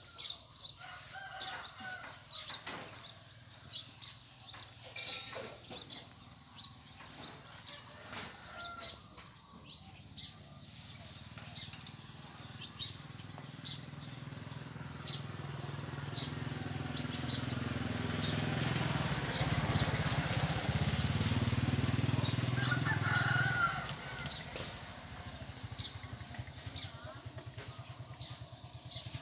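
Outdoor ambience: scattered short high bird chirps, with a low rumble that swells through the middle and eases off near the end.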